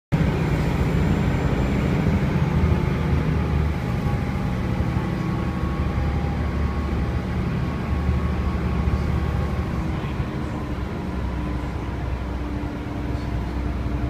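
Passenger ferry's engines running: a steady low drone, heard from inside the cabin.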